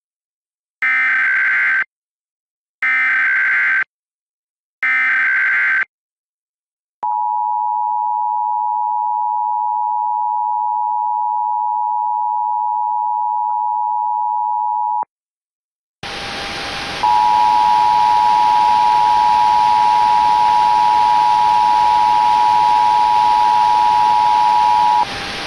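Emergency Alert System tones. Three short, harsh bursts of SAME digital header data come first, then the EAS two-tone attention signal (853 and 960 Hz together), held steady for about eight seconds. After a brief gap a static hiss comes in, and the two-tone attention signal sounds again over the hiss for about eight seconds.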